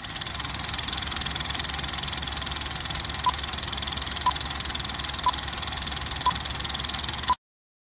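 Film projector running, a fast steady mechanical clatter with hiss. A short countdown-leader beep sounds once a second, five times in the second half, and everything cuts off suddenly just before the end.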